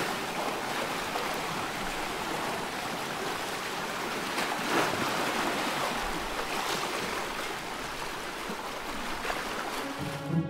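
Shallow sea water lapping and swirling, a steady rush with a louder splash about halfway through. Music comes in right at the end.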